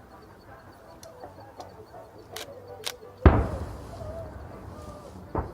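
Fireworks: a couple of short sharp cracks, then a single loud shell burst about three seconds in whose boom echoes and fades over the next second, and another sharp bang near the end.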